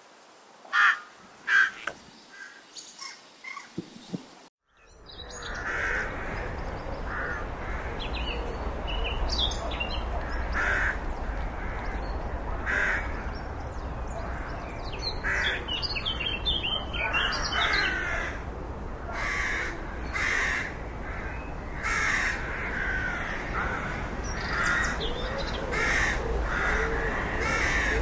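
Rooks cawing with harsh, repeated calls. After a short dropout about four and a half seconds in, the caws come every second or two over a steady low rumble.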